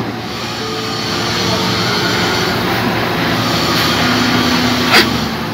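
Outdoor condenser unit of a non-inverter R22 air conditioner running, its compressor humming steadily while the condenser fan motor is seized and the fan does not turn, so the unit overheats. A sharp click about five seconds in.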